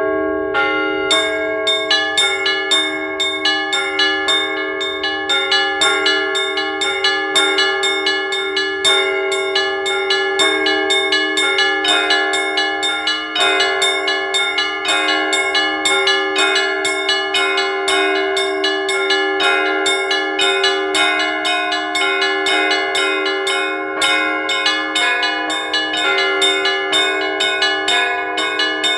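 Church bells being rung: a quick, continuous pattern of small-bell strikes, several a second, over the steady ringing hum of the larger bells.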